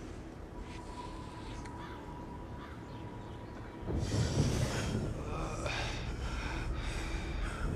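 A faint steady thin tone, then from about four seconds in a man's heavy, ragged breathing with gasps.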